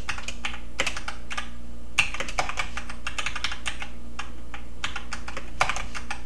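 Typing on a computer keyboard: quick, irregular key clicks, several a second, with short pauses between runs.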